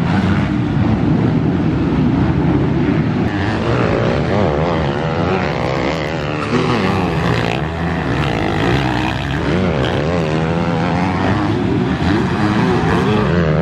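Several motocross bikes racing on a dirt track, their engines revving up and down continuously as they ride past.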